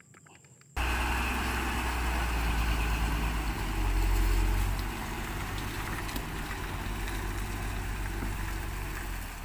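Heavy truck engine running steadily while a wrecker tow truck lifts the front of a loaded cargo truck, a deep low rumble that starts about a second in and swells briefly around four seconds in.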